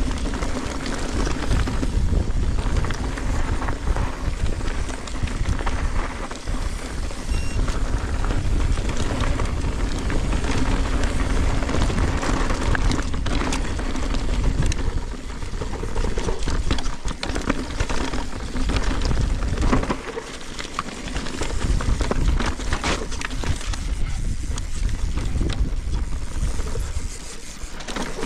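Mountain bike riding down a rough dirt trail: tyres rumbling over dirt and rock, with the chain and frame clattering over bumps and wind buffeting the action camera's microphone.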